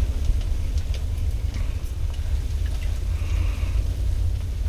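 Faint light clicks as a perch is reeled up and lifted out of an ice-fishing hole, over a steady low rumble.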